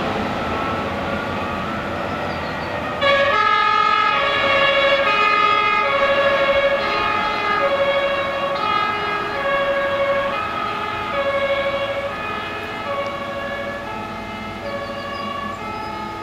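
Traffic noise, then about three seconds in a fire engine's German two-tone siren (Martinshorn) starts suddenly, alternating between a high and a low pitch, and gradually fades toward the end.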